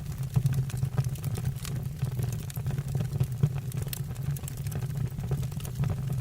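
Wood fire burning in a fireplace: a steady low rumble of the flames with frequent sharp crackles and pops from the burning logs.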